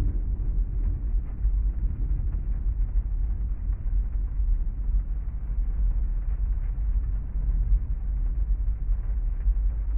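Rain on a parked car, heard from inside the cabin: a steady low rumble under an even hiss, with faint scattered taps.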